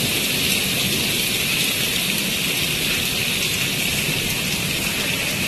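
Monsoon rain falling in a steady hiss.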